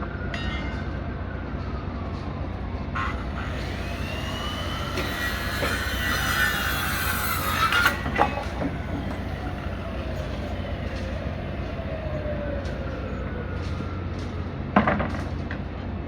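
Vehicle noise: a steady low rumble with slow rising and falling whines, loudest about midway, and a few sharp clicks.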